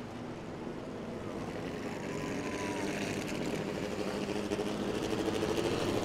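Race truck engine running at low speed, a steady low rumble that grows gradually louder.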